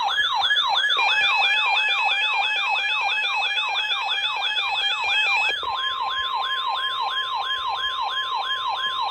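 Emergency alert siren: rapid falling electronic sweeps repeating nearly three times a second, with a steady alert tone over them. About five and a half seconds in, that steady tone changes to a single lower steady tone, while the sweeps keep going.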